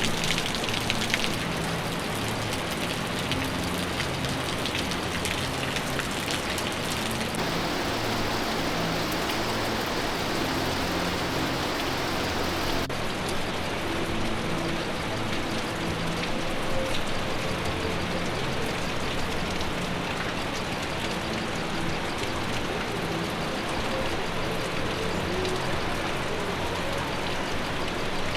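Steady rush of falling water from a waterfall, an even hiss with no break.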